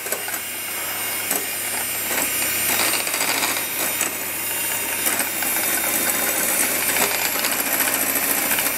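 Hand-held electric mixer running steadily, its beaters whipping eggs and xylitol in a glass bowl until white and fluffy, with the beaters clicking against the glass now and then.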